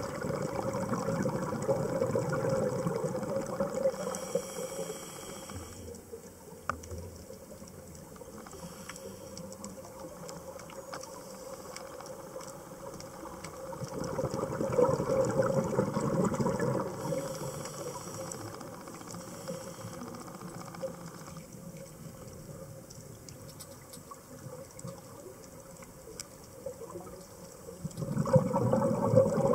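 A scuba diver breathing through a regulator underwater: three long spells of exhaled bubbles, spaced about fourteen seconds apart, with a short high hiss from the regulator on two of the breaths.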